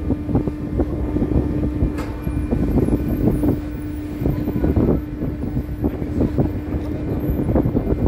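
Wind gusting over the microphone on the deck of a moving car ferry, with the ferry's engine humming steadily underneath.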